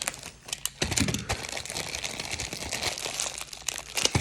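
Packaging being handled and opened: crinkling and rustling with quick irregular clicks and taps.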